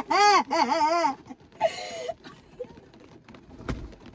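A person's voice in high, wavering wordless cries through the first second, a shorter cry about two seconds in, then a single sharp click near the end.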